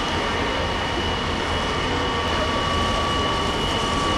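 Fire engines' diesel engines and water pumps running steadily to feed charged hoses: a constant drone with a steady high whine over it.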